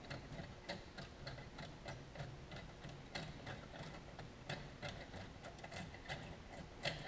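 Faint, irregular metallic clicks and ticks, about two or three a second, from the 24 mm primary clutch bolt and its washer being unthreaded from a Can-Am Maverick X3's primary clutch.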